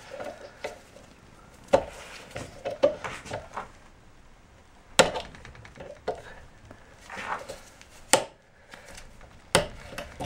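Metal tools clicking and knocking against the splined end of an ATV CV axle held in a bench vise: pliers working at the shaft, with a handful of sharper knocks spread through.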